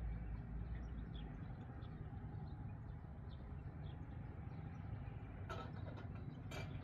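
Outdoor ambience: a steady low rumble like wind, with faint short bird chirps scattered through it and two brief sharp noises near the end.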